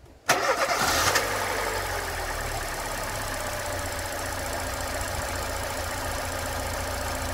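Opel Corsa 1.4i four-cylinder petrol engine starting: the starter, freshly fitted with new brushes, turns it over and it catches at once, running louder for about a second before settling into a steady idle. The quick catch shows the starter now works and the engine starts first time.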